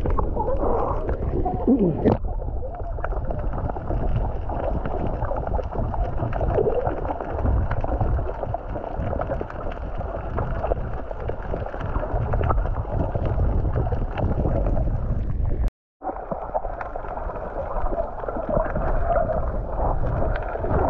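Muffled water sound as heard underwater: continuous gurgling and sloshing with a heavy low rumble. It drops out completely for a moment about sixteen seconds in.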